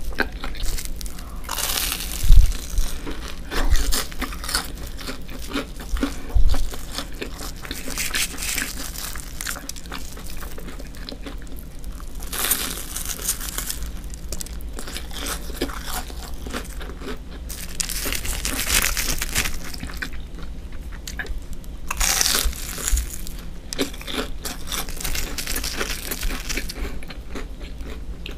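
Close-miked eating of breaded, deep-fried cheese sticks: crisp crunching and crackling of the crumb coating in repeated bouts, with chewing between them. Three low thumps fall within the first seven seconds.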